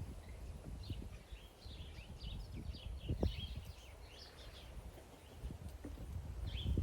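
Small birds chirping repeatedly, with a low rumble on the microphone and a single soft knock about three seconds in.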